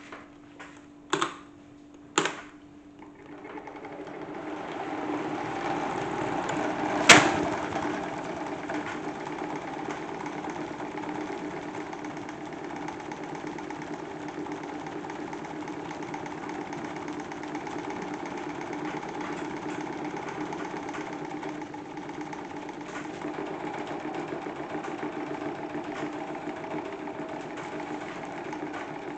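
A salad spinner rigged as a toy washing machine, running: after a few clicks it whirs up to speed over a few seconds and then spins steadily. There is a sharp click about seven seconds in.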